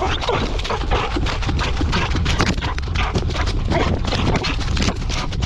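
A tracking dog running through dry leaf litter, its paws striking in a quick, steady rhythm, heard close up from a camera worn on the dog, with a low rumble from the camera's movement.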